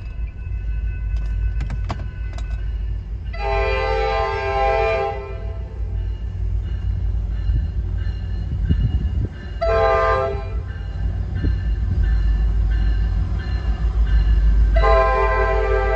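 Tri-Rail commuter train's diesel locomotive sounding its horn for a grade crossing: a long blast about three seconds in, a short blast near ten seconds, and another long blast beginning near the end. Under the horn runs a steady low rumble that grows louder as the train nears.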